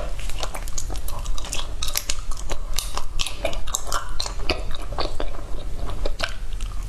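Close-miked eating of a chewy frozen coconut-milk treat: biting and chewing, heard as a dense run of short mouth clicks and smacks.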